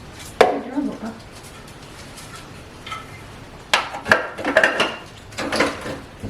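Kitchenware clattering: a sharp knock with a short ring about half a second in, then a quick run of several knocks and clinks about four to five and a half seconds in.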